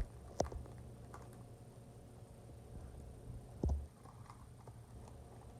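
Scattered light clicks and crinkles of a small plastic surprise packet being handled and opened, with a soft low bump about three and a half seconds in.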